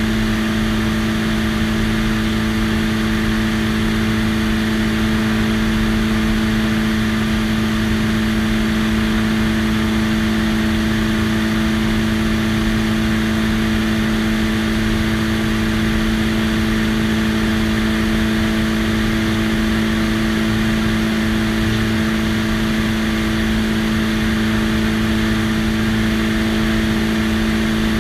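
Biplane's piston engine and propeller running steadily at cruise power in flight: an even drone with a strong steady pitch over rushing airflow noise.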